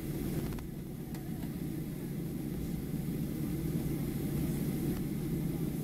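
Cabin noise of a Boeing 737-700 taxiing, its CFM56-7 jet engines at low thrust: a steady low rumble that grows slightly louder toward the end.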